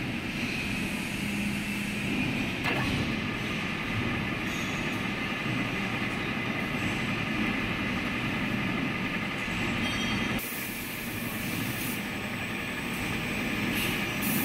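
Vertical milling machine running with a fly cutter spinning on the spindle, milling wrench flats on a steel hydraulic shaft: a steady mechanical running noise. Its tone changes abruptly about ten seconds in, with more hiss.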